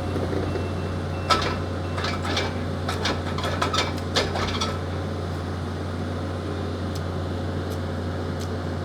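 Engine of a construction machine running steadily, with a cluster of sharp knocks and clanks between about one and five seconds in.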